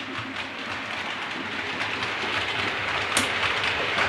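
Model train running on the layout track, a steady rattle that slowly grows louder. There is one sharp click of the control-panel switch about three seconds in.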